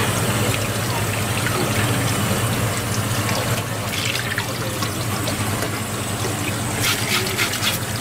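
Water running from a sink tap and splashing over a parrotfish as hands rinse it, with a few sharp clicks near the end.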